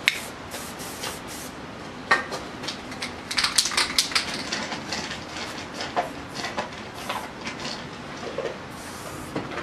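Montana 94 spray can being used: the mixing ball rattles in short bursts as the can is shaken, and paint hisses through the cap in short sprays, with a longer spray near the end.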